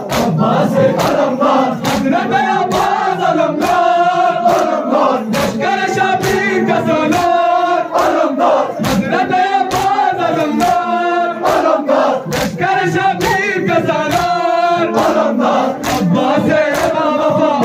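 A group of men chanting a Muharram noha in unison, led by a voice on a microphone. Steady, regular chest-beating slaps (matam) keep time with the chant.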